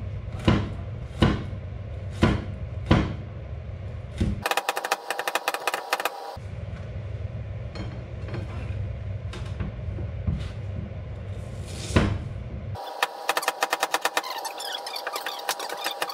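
Cleaver chopping garlic and onion on a plastic cutting board: a few single chops about a second apart, then fast runs of mincing strokes, many a second, from about four seconds in and again from about thirteen seconds. A steady low hum lies under the quieter middle, broken by one sharp knock about twelve seconds in.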